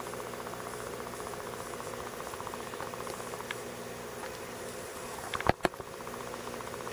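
Steady buzzing hum of an aquarium pump, with two sharp knocks close together about five and a half seconds in.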